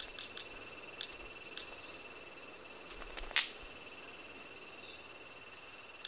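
Red-capped manakin wing snaps: a quick run of sharp snaps at the start, single snaps about a second and a second and a half in, and the loudest snap about three and a half seconds in. A steady buzzing insect chorus runs underneath.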